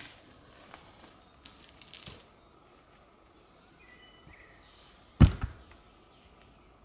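A heavy thud about five seconds in, followed at once by a smaller one. A few light knocks and snaps come before it, and a faint short high chirp just before the thud.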